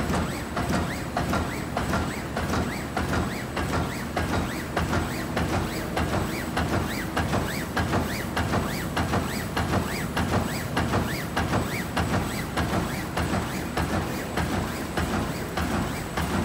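A doypack zipper pouch making machine running: its sealing heads and film feed clatter in a fast, even rhythm of several strokes a second, with a thin steady high whine.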